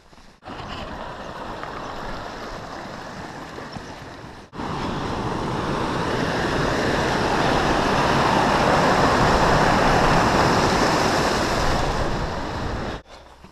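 Rushing water of a small mountain stream cascading over boulders, swelling louder toward the middle and cutting off abruptly near the end. Before it comes a quieter steady rushing noise that stops suddenly about four seconds in.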